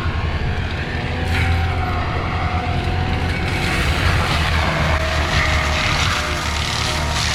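Skid steer diesel engine running hard and steady, with a rushing noise that builds about three and a half seconds in, as of a forestry mulcher head working.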